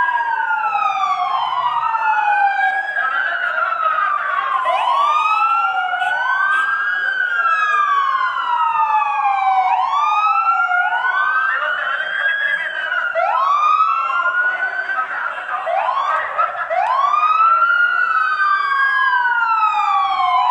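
Two or more emergency-vehicle sirens wailing together, out of step, each rising quickly in pitch and falling slowly over about three seconds, responding to a restaurant fire.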